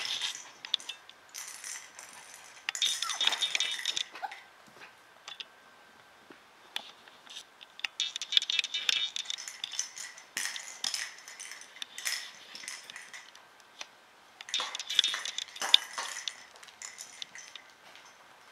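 Biewer terrier puppies play-fighting: spells of high-pitched yips and squeals mixed with light scratching and clinking, separated by short quieter gaps.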